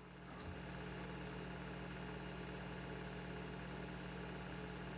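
A faint, steady low hum.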